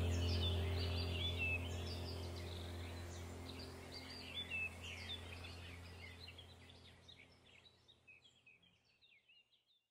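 A background soundtrack of birds chirping over a low steady drone, fading out gradually to silence near the end.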